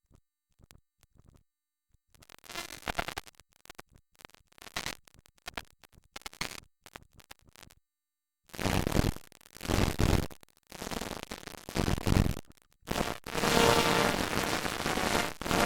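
Near silence at first, then a stutter of short harsh noise bursts that come sparsely and then turn into louder, longer stretches of noise about eight and a half seconds in.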